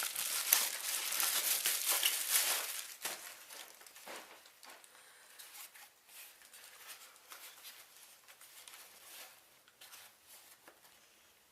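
Plastic packaging crinkling and rustling as a new camera body is unwrapped, loudest for the first three seconds, then dying down to faint scattered rustles and small handling clicks.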